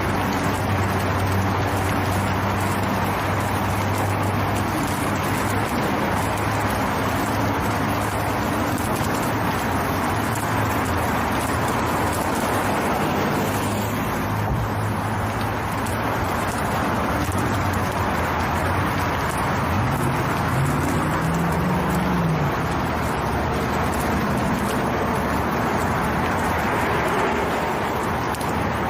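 Steady road and engine noise of a motor vehicle, a continuous rumbling hiss with a low hum, and a brief rising-and-falling tone about twenty seconds in.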